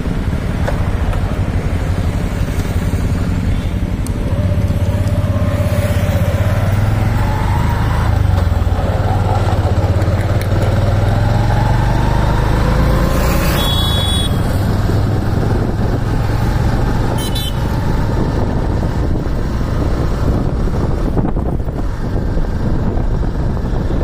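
Road traffic of passing motorcycles and scooters, their engines rising and falling in pitch over a steady low rumble. There is a short high-pitched toot about fourteen seconds in.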